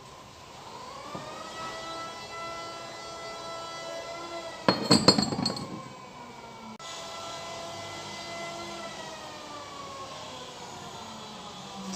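A brief burst of metal clinking and clattering about halfway through, as the steel parts of a scooter's CVT clutch are handled. Under it runs a steady humming tone that rises in pitch at the start and sags near the end.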